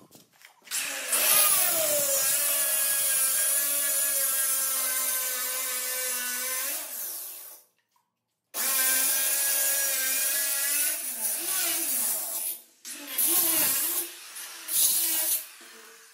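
Handheld electric marble cutter with a diamond blade cutting granite: a loud motor whine over a grinding hiss, dropping slightly in pitch about a second in. It runs for about seven seconds, cuts off abruptly, then comes back in shorter, uneven runs that stop and start.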